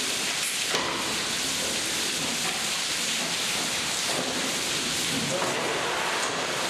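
Steady hiss of running water from the taps at fish-filleting tables.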